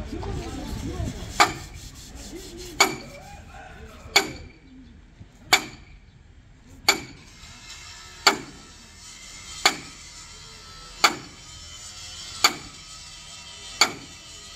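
Sledgehammer striking a steel truck chassis rail in a steady rhythm, ten heavy blows about a second and a half apart, each ringing briefly, as the damaged frame is beaten back into shape.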